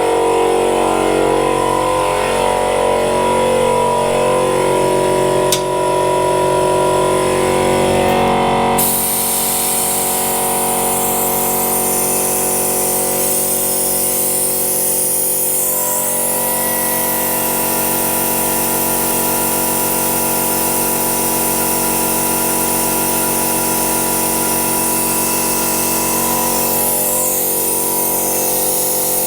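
A brake-bleeding vacuum machine runs steadily, drawing brake fluid out of a Vespa GTS250ie's brake system. About nine seconds in its sound changes and a strong hiss comes in.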